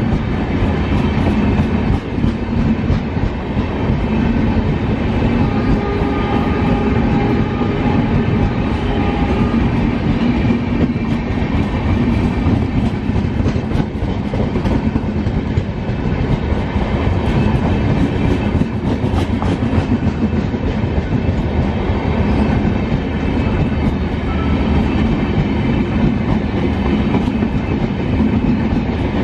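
Indian Railways LHB passenger coaches rushing past at speed: a steady, loud rumble of the train with the wheels clattering on the rails throughout.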